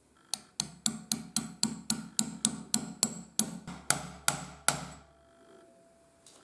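Hammer tapping a steel pin punch, about sixteen quick ringing metal-on-metal taps at roughly four a second, driving a pin into the bevel gear hub of a vintage breast drill. The taps stop about three-quarters of the way through.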